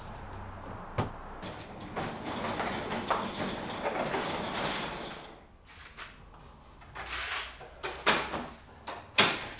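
Wooden workbench's fold-out extension board being slid out and set in place: a scraping, sliding noise, then a few sharp wooden knocks near the end.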